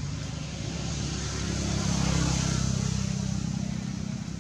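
A motor vehicle passing by: a low engine hum and road hiss swell to a peak about halfway through, then fade away.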